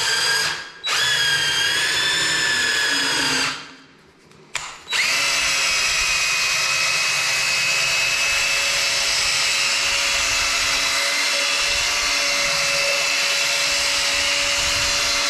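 Electric drill with a mixing paddle churning a bucket of thick gypsum skim-coat compound, its motor whining steadily. It cuts out briefly just under a second in and again for about a second near the four-second mark, then runs without a break.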